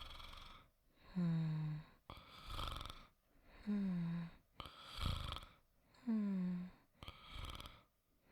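A person snoring softly. Each breath is a short voiced snore that slides down in pitch, followed by a breathy, rasping breath, repeating about every two and a half seconds, three times over.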